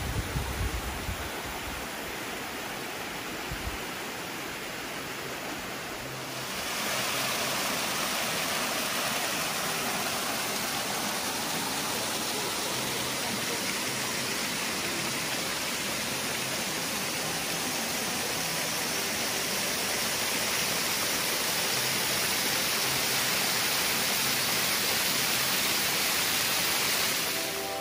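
Steady rush of a small waterfall and cascading creek water, an even hiss of falling water that grows louder about six seconds in.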